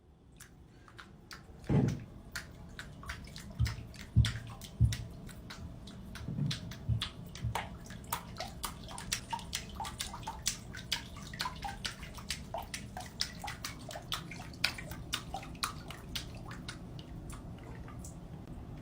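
Water sloshing and dripping, with many small sharp clicks and a few louder low splashes in the first few seconds.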